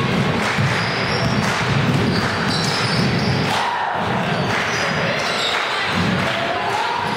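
Sounds of a basketball game in play in a large gym: a basketball bouncing on the hardwood court, mixed with voices from players and spectators. A few short squeaks come through about halfway through and again near the end.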